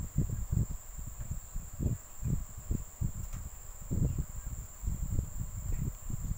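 Handling noise from hand-crocheting close to the microphone: irregular low rubs and bumps as fingers work the hook and yarn through single crochet stitches. A steady high-pitched whine runs underneath.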